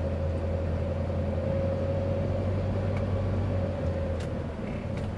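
Steady road and engine noise inside a moving Hyundai Starex camper van: a low rumble with a faint steady higher hum over it.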